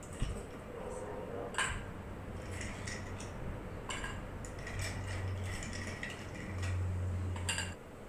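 Dishes, cutlery and a glass clinking as they are moved and set down on a small table, with three sharp clinks. A low hum comes in twice in the second half.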